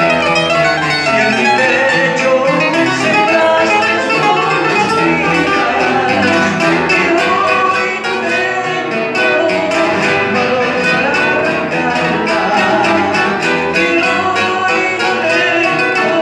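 Two acoustic guitars playing a Latin American song live.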